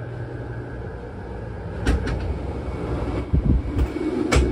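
Steady low hum of machinery in a boat cabin, with a sharp knock about two seconds in, a few low thuds, and a sharp click near the end, like a cupboard or door being handled.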